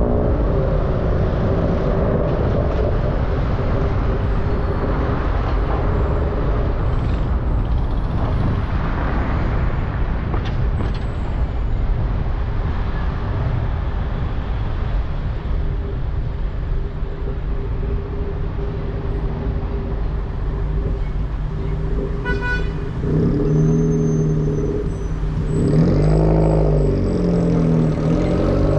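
A car driving through town traffic: steady engine and road rumble. From about two-thirds of the way in, a louder droning hum from a nearby vehicle, shifting in pitch near the end.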